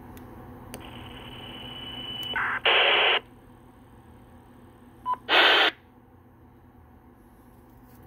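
Two-way radio gear for an RPT50 repeater and a handheld: a faint high steady tone, then two short loud bursts of squelch static about two and a half seconds apart, with a brief beep just before the second.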